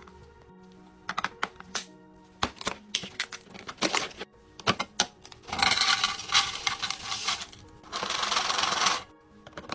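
Restocking sounds: a quick run of sharp clicks and taps, as of plastic containers and lids being handled and set down, then two longer stretches of rustling hiss about halfway through and near the end, over faint background music.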